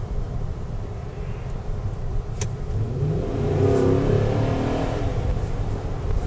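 Chevrolet Suburban's 5.7-litre V8 engine under way, revving up about three seconds in and then easing off. A short click a little over two seconds in.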